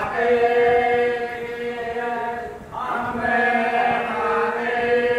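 Chanted vocal music: long, steadily held sung notes in two phrases, with a brief break about halfway through.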